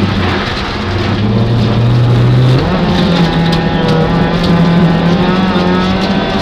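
Peugeot 205 rally car's engine heard from inside the cabin. It runs low and steady, then jumps sharply higher about two and a half seconds in and holds there under throttle, rising slightly.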